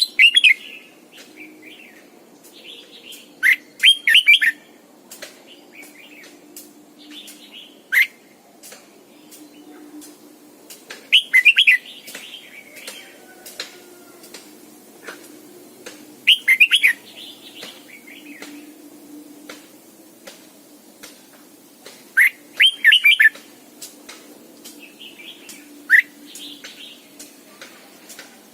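Red-whiskered bulbul singing short, loud warbled phrases about every four to five seconds, with faint chirps and soft clicks in between.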